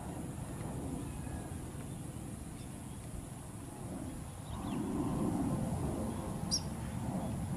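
Distant low rumble of a Sukhoi Su-30's twin jet engines on landing approach, swelling a little about halfway through as the jet comes closer. A single short, high chirp falling in pitch sounds near the end.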